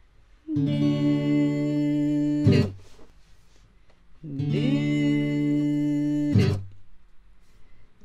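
Acoustic guitar playing two chords, each strummed and held for about two seconds, then cut off with a short scrape of the strings.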